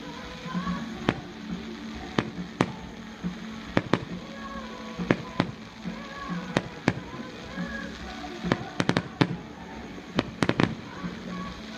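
Fireworks going off in sharp bangs at irregular intervals, with several in quick succession in the last few seconds, over background music.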